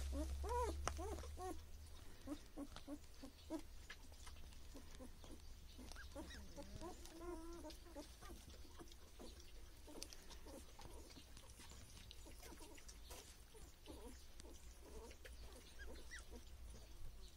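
Faint, quick squeaks and whimpers from young animals, a quick run of them in the first few seconds and only scattered ones after, over soft rustling as they shift about on a blanket.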